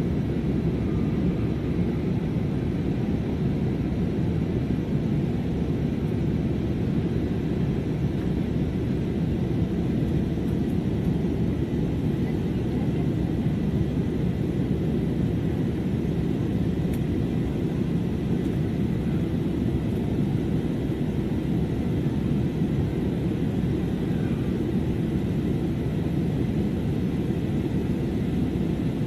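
Steady jet airliner cabin noise in flight: an even, unchanging rumble of engines and airflow, heaviest in the low end.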